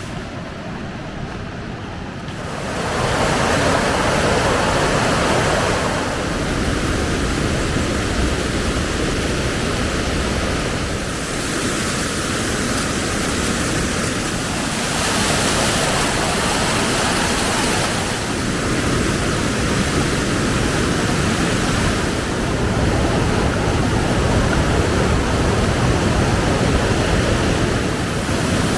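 Veliki Slap, the big waterfall, making a steady rush of falling water that grows louder about two and a half seconds in.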